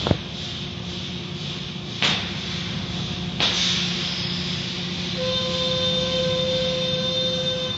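Tunnel car wash machinery and water spray running steadily, heard from inside a car in the wash, with three sharp thumps against the car and a steady whine that starts about five seconds in.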